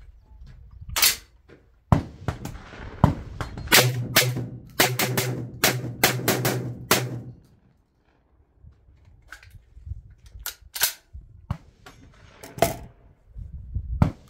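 Tokarev TT12 semi-automatic 12-gauge shotgun firing a rapid string of shots, many about half a second apart. After a short pause it fires a few more, spaced out.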